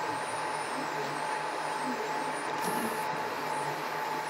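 High-speed CoreXY 3D printer running a print: its stepper motors whine in pitch sweeps that rise and fall about once a second as the toolhead moves rapidly back and forth, over a steady hum from its cooling fans.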